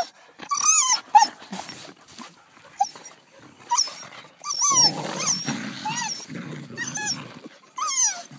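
Dog yelping and whining in a string of short, high cries that rise and fall, with a stretch of low growling in the middle during rough play between dogs.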